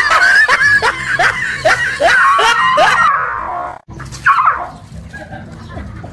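A dog barking and yelping frantically in quick succession, about two or three sharp barks a second, each dropping in pitch. About four seconds in there is one more yelp, and then the sound goes quieter.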